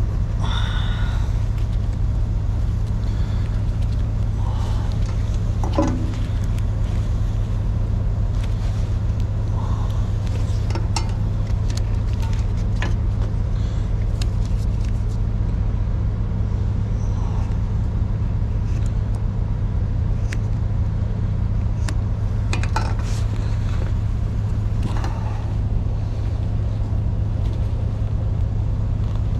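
Steady low rumble of an idling engine. Scattered small clicks and knocks of hand tools and fittings being handled sound over it, a sharper knock about six seconds in.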